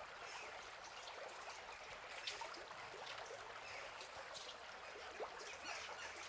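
Faint trickling water: a steady hiss with many small drips and ticks scattered through it.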